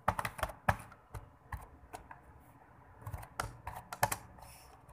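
Computer keyboard keys clicking as a short line of text is typed, the keystrokes coming at an uneven pace with small pauses between groups.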